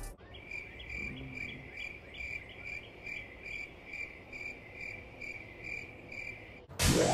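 Crickets-chirping gag sound effect for an awkward silence: a cricket's chirp repeating evenly, about two and a half times a second, starting abruptly. Near the end it is cut off by a loud burst and a rising swell of music.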